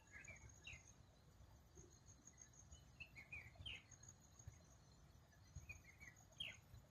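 Faint bird calls: short chirps and quick falling notes in scattered groups, the clearest about three and a half and six and a half seconds in, over a steady high insect trill and a low rumble.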